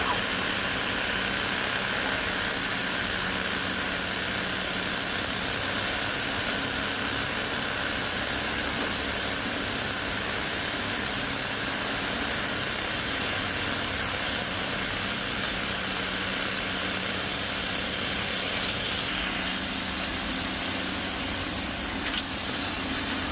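Heavy diesel engine of earth-moving machinery running steadily, with a faint steady hum; a higher hiss joins in about two-thirds of the way through.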